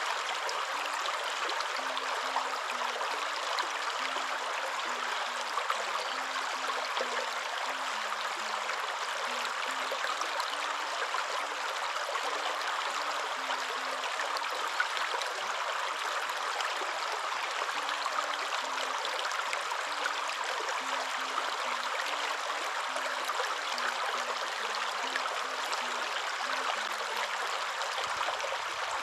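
Waterfall rushing in a steady, even roar of falling water, with faint low notes stepping up and down beneath it.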